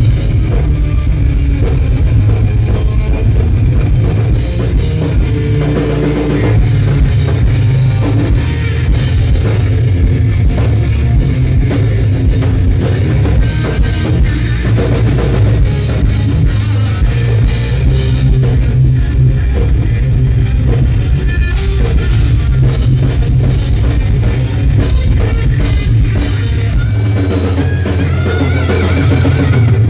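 Live hard rock band playing loudly: distorted electric guitar over a pounding drum kit and bass, steady throughout.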